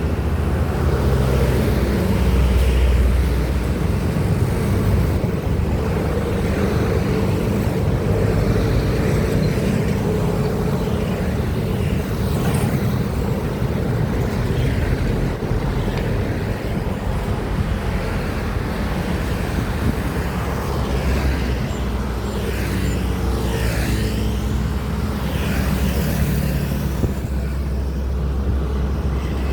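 Heavy highway traffic of diesel trucks and buses running past, a steady low engine drone. Now and then a passing vehicle's pitch sweeps up and then falls, about twelve seconds in and several times near the end.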